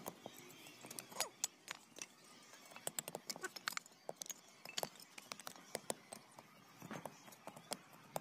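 Broken clay brick tile pieces clacking against one another as they are laid by hand into a sand bed, irregular sharp knocks a few times a second.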